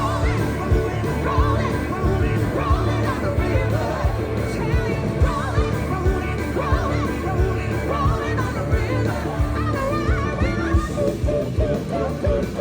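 Live rock band playing with a steady drum beat while a singer sings over it.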